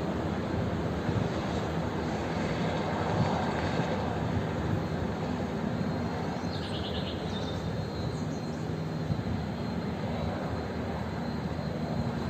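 Helicopter flying overhead, a steady drone of engine and rotor with no letup.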